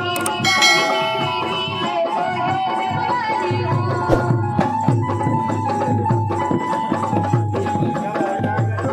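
Live Indian folk-devotional music (a Bhim geet): hand drums such as tabla keep a steady beat under a held melodic line, with a bright ringing strike near the start.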